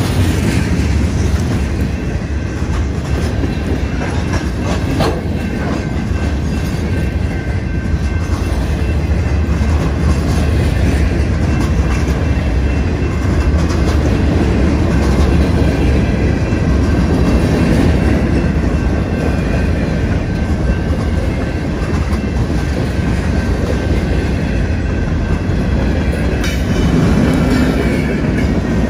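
Freight cars of a long mixed freight train rolling past close by: a steady rumble of steel wheels on rail, with clickety-clack as the wheels cross rail joints.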